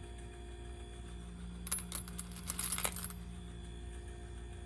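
Empty 9mm brass cartridge cases clinking against one another in a quick cluster of light metallic clicks, lasting about a second and starting a little under two seconds in, as they are picked through by hand. A faint steady hum runs underneath.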